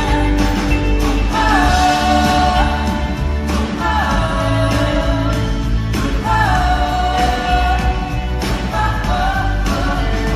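Pop-rock band playing a song live, with sung phrases about every two and a half seconds, each sliding in pitch, over a steady full-band backing.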